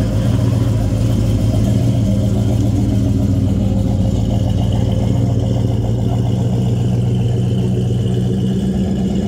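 Custom 1956 Chevrolet Bel Air's engine idling steadily.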